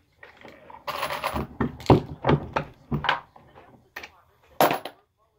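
Hornady Lock-N-Load Classic single-stage reloading press being cycled to resize and deprime 5.56 brass cases: a run of metallic clinks and knocks from the press and the cases, followed by two sharp clicks near the end.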